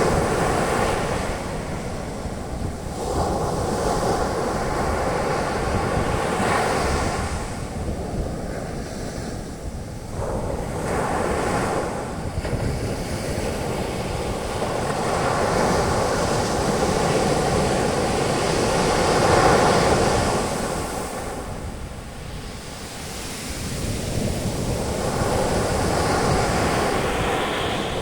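Ocean waves breaking and washing up the beach as foaming surf, the rush of water swelling and easing every few seconds.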